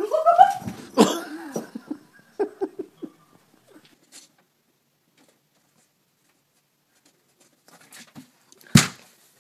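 A short rising cry and a sharp knock, then a few light knocks and taps. After some seconds of quiet comes one sharp, loud crash near the end, as a cat clambers over a laundry hamper in a closet.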